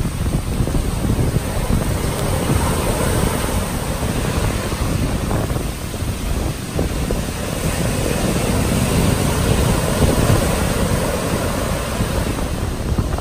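Tropical storm wind gusting hard and buffeting the microphone, over a continuous rushing of wind and surf. The gusts swell and ease without stopping.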